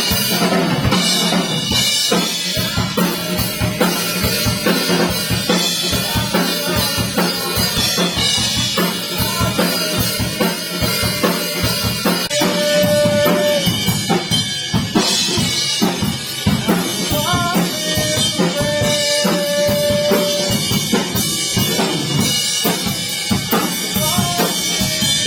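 Rock band playing: a drum kit keeping a steady beat, with bass and electric guitar notes over it.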